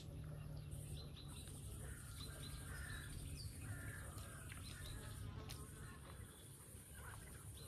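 Small birds chirping in short, scattered calls over a steady high hiss and a low background rumble.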